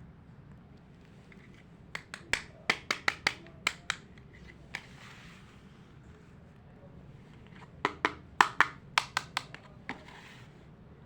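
Small hard plastic toy pieces clicking and tapping as they are handled, in two quick runs of sharp clicks with soft rustling between.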